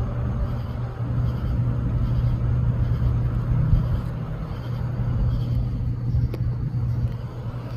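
A motor vehicle's engine running, a steady low hum over a rumble.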